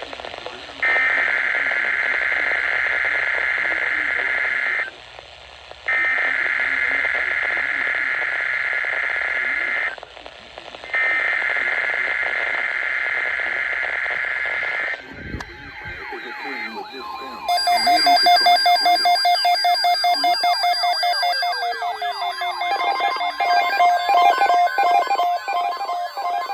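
Emergency Alert System SAME header data bursts: a harsh digital screech sent three times, each about four seconds long with a second's gap between, marking the start of a new alert. A little past halfway they give way to layered steady electronic alert tones with gliding notes over them.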